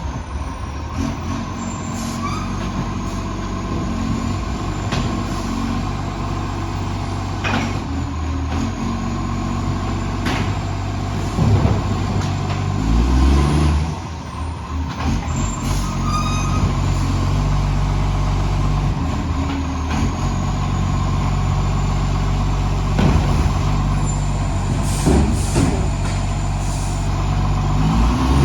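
Garbage truck's diesel engine running with a massive exhaust leak, its level and pitch shifting as it works, with a few sharp knocks along the way.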